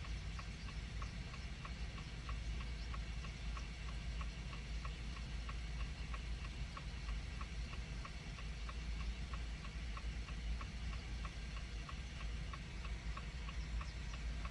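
Steady, even ticking, about three ticks a second, over a low steady hum.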